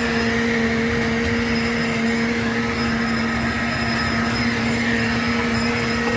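A steady machine-like drone: one even hum that holds a constant pitch, over continuous background noise.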